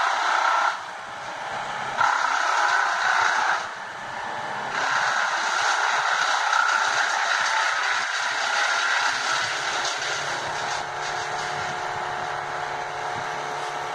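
Engine and hydraulics of a 70-ton mobile crane working as it lifts a cut tree top on its jib: two brief rises in engine speed, then running loud and steady for several seconds before easing slightly.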